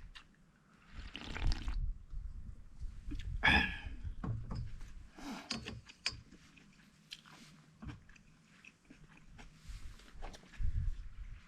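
A person chewing and crunching food close to the microphone, with irregular small clicks and a few short louder crunches.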